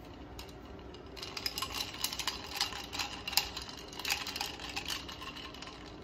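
Ice cubes clinking against the sides of a glass of iced brown sugar milk tea as the drink is moved about: a quick, uneven run of small clicks that starts about a second in and dies away near the end.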